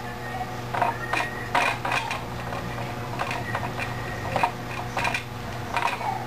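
Irregular taps and knocks of a marker and hand against a whiteboard as a letter is wiped off with a cloth, over a steady low hum.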